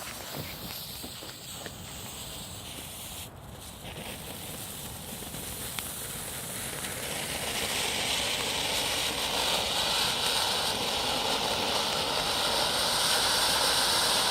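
Lesli Vegas Volcano, a Class 1 firework fountain, spraying sparks with a hiss that is faint at first and grows louder and steady from about halfway through.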